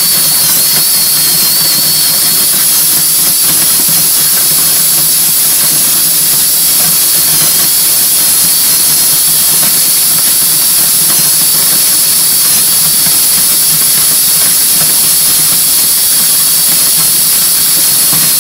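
Cordless drill driving a small auger that pulls shelled corn out of a grain rescue tube: a steady, loud hissing whir with a thin high motor whine that wavers slightly.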